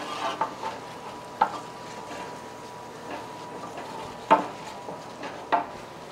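Wooden spoon stirring and scraping a roux of flour and oil in a metal roasting pan over low heat, with a soft steady sizzle as the flour cooks. A few sharp knocks of the spoon against the pan, the loudest about four seconds in.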